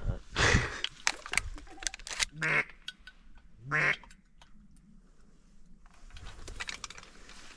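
Two loud, short duck quacks about a second and a half apart, following a loud thump near the start, with light rustling and clicks in between and afterwards.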